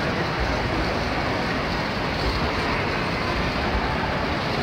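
Steady din of a busy tournament hall: many people talking at once with a dense background rumble and no single voice standing out.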